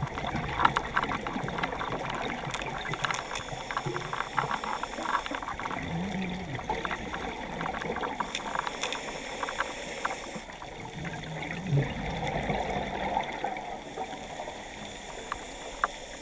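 Underwater sound of a scuba diver breathing through a regulator, with rushes of exhaled bubbles a few times, over dense crackling clicks.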